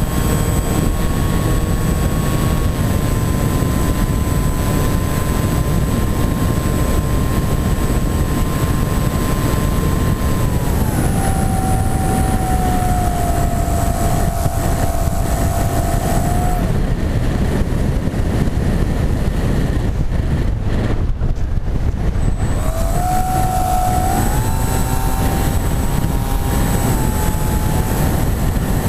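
Wing-X EPP flying wing's electric motor and propeller whining, heard from the onboard camera under heavy wind rumble. The whine steps down about a third of the way in and stops for several seconds as the motor is cut to glide. It then comes back and climbs in pitch as the throttle is opened again.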